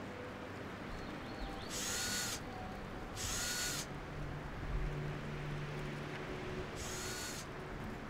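Cordless drill-driver running in three short bursts, each spinning up and winding down, as it drives screws into pine boards.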